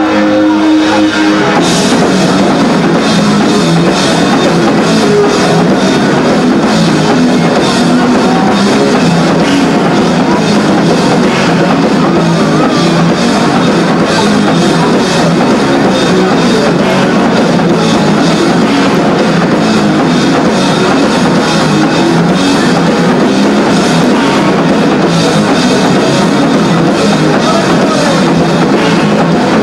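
Rock band playing live: guitar and drum kit. A held chord breaks into the full band, drums pounding, about a second and a half in.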